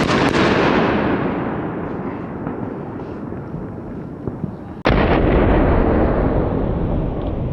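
ABA 'Machine Gun' firework pot (Feuertopf) going off with a dense rush of rapid crackling reports that slowly dies away. About five seconds in it comes back abruptly at full strength.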